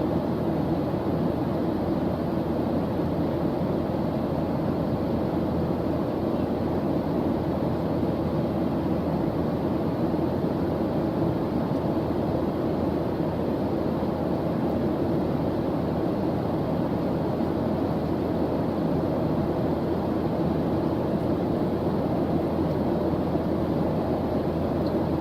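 Steady background noise track played as study ambience: an even, unbroken rushing hiss, weighted toward the low and middle range, with no changes.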